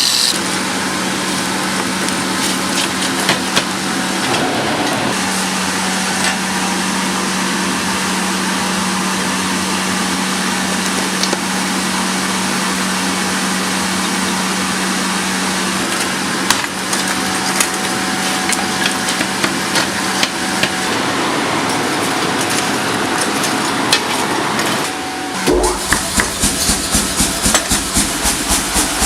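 A machine hums steadily with a light hiss. Near the end it gives way to rapid, evenly spaced hammer blows, about four a second, as steel is forged.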